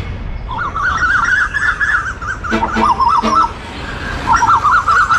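A bird's fast warbling call, wavering up and down in pitch, in two long phrases with a short break between, over a steady low rumble.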